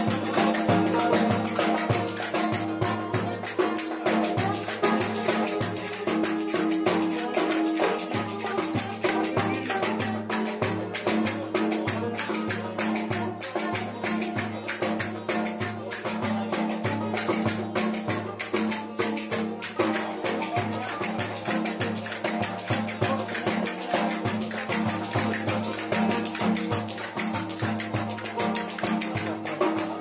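Lively folk dance tune played on a cümbüş, a metal-bowled fretless lute, with fast, steady strumming that gives a bright jangle.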